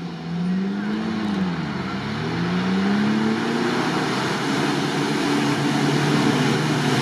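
Engines of UAZ off-road 4x4s pulling through deep muddy water. The engine pitch dips about a second in and climbs again, then holds under load, over a steady rush of splashing water and mud.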